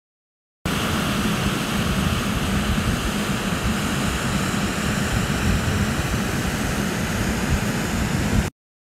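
River water pouring over a concrete causeway: a loud, steady rush of falling water that starts abruptly just under a second in and cuts off suddenly near the end.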